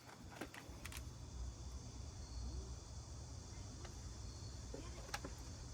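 Faint outdoor background with insects chirping softly, a low steady hum and a few light clicks and taps.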